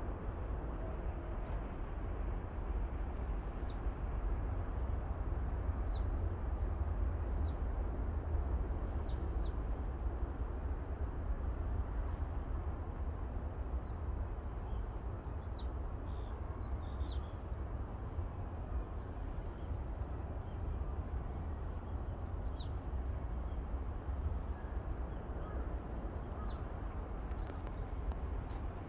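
Small birds giving short, high chirps now and then, most often around the middle, over a steady low rumble.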